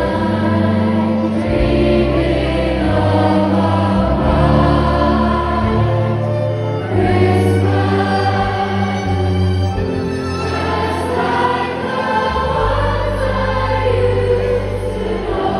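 Large gospel choir singing a Christmas song in many voices, over a low bass line.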